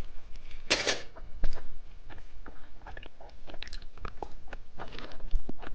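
Close-miked chewing and biting of a soft filled gummy candy: irregular wet smacks and clicks, with one louder burst just under a second in.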